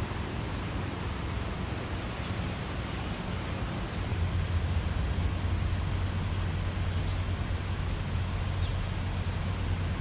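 Steady outdoor rumble and hiss with a low hum underneath, the hum growing louder about four seconds in.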